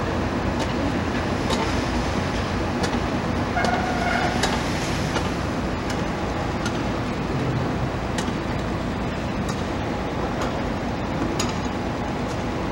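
Demolition excavator working: a steady low engine rumble with scattered sharp clinks and knocks, and a short squeal about four seconds in.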